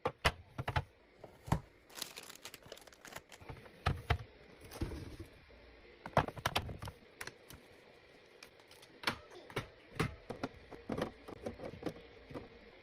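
Plastic food containers and packaging being set down and arranged on fridge shelves: an irregular run of sharp clicks and knocks, with short spells of packaging crinkling.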